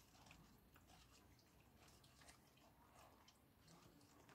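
Near silence: faint background hiss with a few faint ticks.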